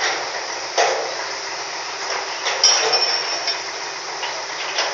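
Steady port machinery noise with sharp metal clanks and knocks, about a second in, around three seconds in and near the end. A brief high metallic ring or squeal comes with the clank around three seconds in.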